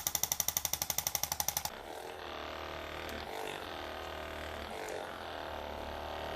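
A rapid mechanical pulsing, about a dozen even beats a second, that stops abruptly under two seconds in, followed by a steady, quieter hum.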